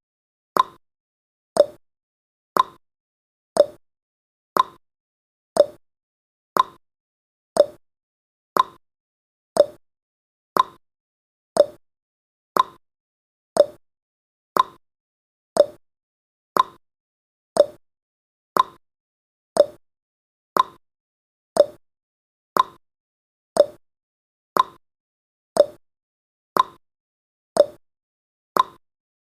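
Countdown timer's clock-tick sound effect, one short tick each second, alternating slightly higher and lower in pitch like a tick-tock.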